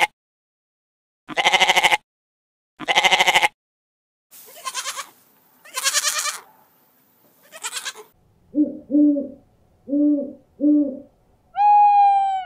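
Goat bleating about five times, loud wavering calls with short gaps between them. Then a great grey owl calls: four short, low hoots in two pairs, and one long, steady call near the end.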